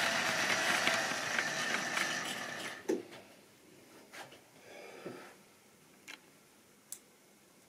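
Model railway wagons rattling over the track as the train runs past, the running noise ending with a sharp click about three seconds in. After that come a few faint clicks and small knocks.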